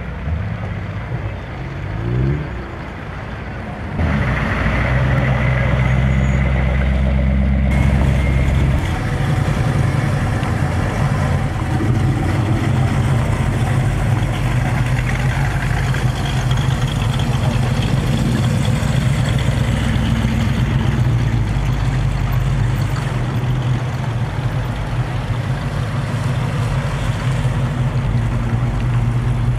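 Engines of classic American cars running at low speed as they drive past in a slow line, a steady low drone with a short rising rev about two seconds in.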